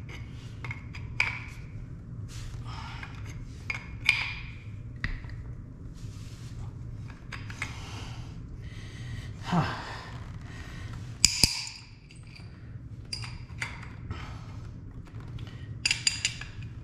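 Adjustable wrenches clinking and scraping against a brass shower valve body as its threaded copper press-fitting adapters are tightened: a string of sharp metallic clicks, some ringing briefly, over a steady low hum.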